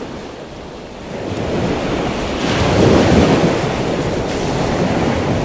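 Rushing noise of ocean waves, swelling to a peak about three seconds in and then easing off.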